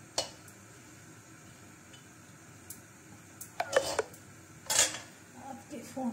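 Stainless steel utensils clinking: a small steel bowl knocking against a steel kadhai, a few sharp clinks with a brief metallic ring, the loudest about three quarters of the way through.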